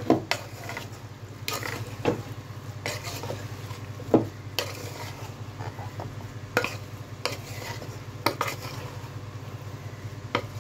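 A wooden spatula stirring boiled chickpeas coated in spice powder inside a pressure cooker's metal pot. The chickpeas rustle wetly and the spatula knocks irregularly against the pot's side.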